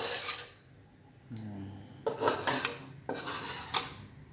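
Metal spatula scraping the inside of a metal wok, scooping out finished chili sambal: a sharp scrape right at the start, then a few more scraping strokes about two to four seconds in.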